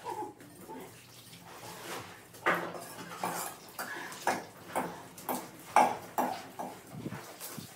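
A small metal pot clanking and scraping against a metal bucket as wet cement slurry is scooped out and poured, a string of sharp clanks with a short ring.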